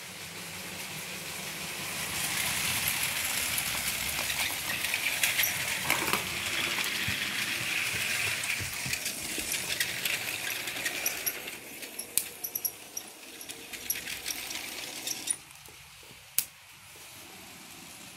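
Motorized Lego train running on plastic track: a steady whir from its small electric motor, with its wheels clicking over the track joints. It grows louder over the first two seconds and turns into scattered clicks before stopping about fifteen seconds in, followed by a single sharp click.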